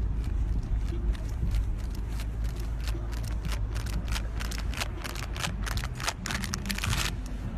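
Wind buffeting the microphone with a steady low rumble, overlaid by irregular crackling clicks.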